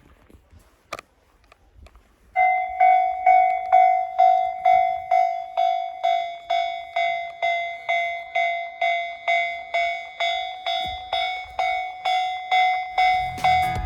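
Japanese railway level-crossing warning bell starting up about two seconds in, then dinging evenly a little under three times a second with a clear two-tone ring ("kan-kan"), the signal that a train is approaching and the crossing is closing.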